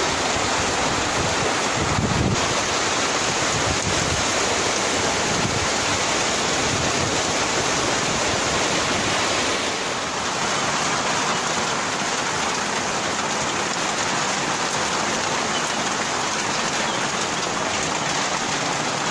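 Steady rain falling on corrugated metal roofing, a dense, even hiss of drops.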